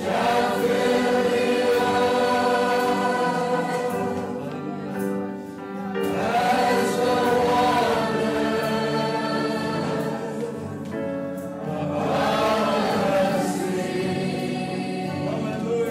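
A choir singing a hymn in three long phrases, with held notes that swell at the start of each phrase.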